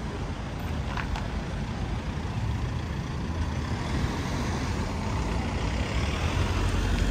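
Road traffic: a motor vehicle running close by, a steady low rumble that grows a little louder toward the end.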